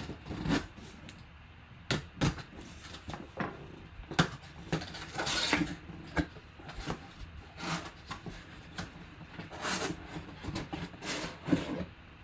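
A cardboard box being cut open with a knife and unpacked. Its flaps are opened and a mini helmet in a plastic case is pulled out: an irregular string of knocks, scrapes and rustles, with longer scraping stretches about five seconds in and again near ten seconds.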